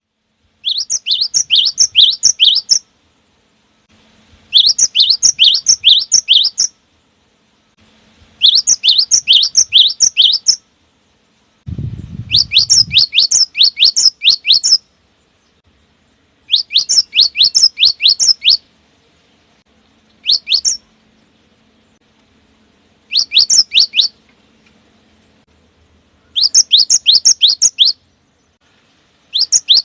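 Cinereous tit (gelatik batu) singing a loud, fast-repeated 'wucit wucit' song: phrases of quick sweeping high whistled notes, each up to about two seconds long with short pauses between, about eight times over, one phrase cut very short. A brief low rumble sounds about twelve seconds in.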